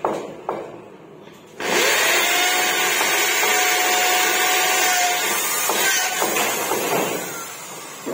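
Electric drill spinning up and boring a hole, running steadily with a motor whine for about five seconds before it winds down. A couple of knocks come just before it starts.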